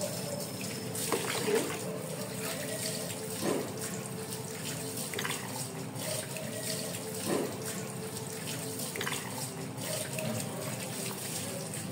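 Water running steadily into a plastic basin, with water poured and splashed over a wet dog's coat as it is rinsed and scrubbed; a couple of short splashes stand out.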